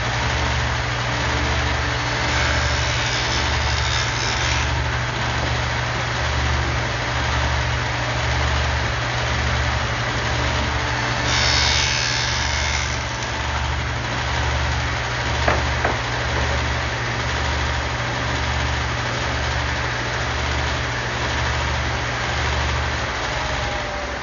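Table saw running with a steady motor hum and a slow throb, its blade cutting a rabbet along the edge of a plywood panel as it is fed through. The cutting sound is loudest twice, about three seconds in and again about eleven to thirteen seconds in, with a single click near the middle.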